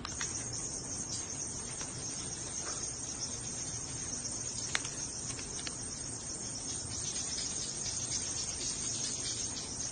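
Steady high-pitched chirping of insects, with a single sharp click about halfway through.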